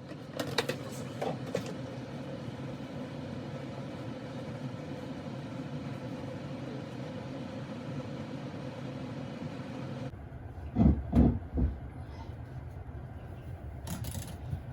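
A pot of tengusa seaweed boiling on a stove burner: a steady low rumble, with a few clicks near the start and a couple of heavy thumps about eleven seconds in.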